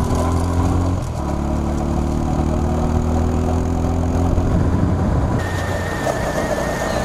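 Motorcycle engine running at a steady pace. Its hum breaks off briefly about a second in, then picks up again and climbs slightly in pitch.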